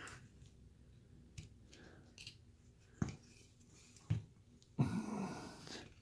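Carving knife paring basswood by hand: a few faint, separate cuts and clicks of the blade in the wood, then about a second of louder scraping and rustling near the end.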